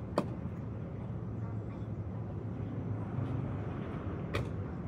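Steady low rumble of vehicle engines, with two sharp clicks, one just after the start and one near the end.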